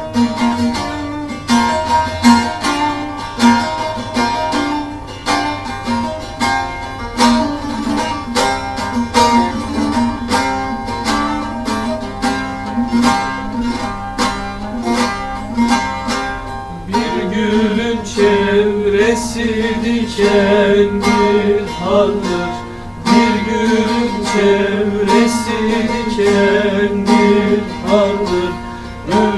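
Music: a fast plucked-string instrumental passage of a Turkish folk song, with a held, wavering melody line joining over the plucking a little past halfway.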